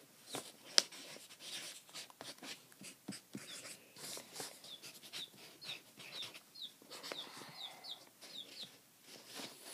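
Baby chicks peeping: many short, high chirps, one after another. Rustling and clicks are mixed in, with one sharp click about a second in as the loudest sound.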